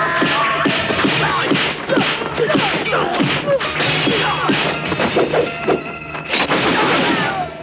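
Kung fu fight sound effects: a rapid, dense series of punches, kicks and whacks over background music.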